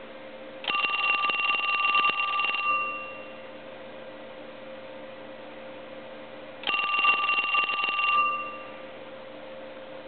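A 1979 Western Electric rotary dial telephone's bell ringer ringing twice for an incoming call, each ring a rapid clatter of strokes about four seconds apart, the second ring shorter. The ringer volume is not turned all the way up.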